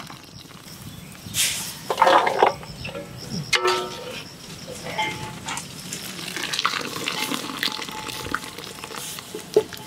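A perforated metal skimmer scooping boiled vegetables out of a large aluminium pot of hot water, with water splashing and draining back into the pot and the skimmer scraping against the metal. About three and a half seconds in, the skimmer knocks the metal with a sharp ringing clink.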